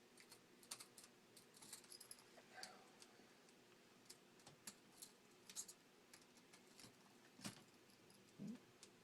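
Faint, scattered clicks and ticks of a small screwdriver backing out the tiny screws along the sides of a laptop screen's metal frame, with a brief low sound near the end.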